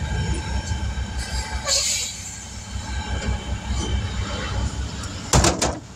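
A steady low motor rumble with faint steady whine tones, broken by a short loud hiss or clatter about five and a half seconds in.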